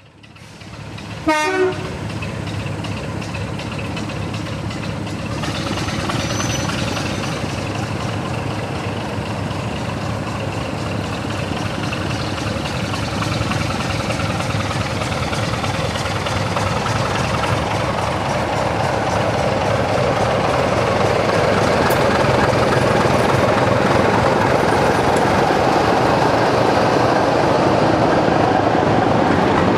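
Class 27 diesel locomotive D5401 giving a short horn blast about a second in, then its Sulzer diesel engine growing steadily louder as it approaches and draws its coaches past.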